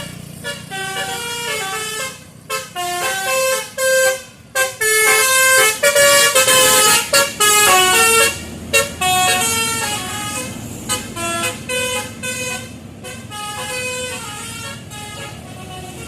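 Bus telolet horns, the multi-tone air horns of Indonesian buses, playing a quick melody of short stepped notes, loudest from about six to eight seconds in, over the bus engines running.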